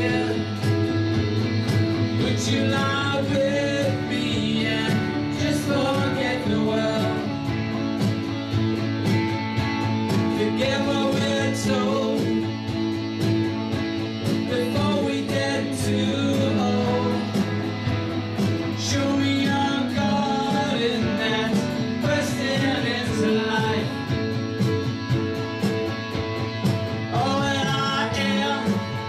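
Live band playing a song, with an electric guitar prominent.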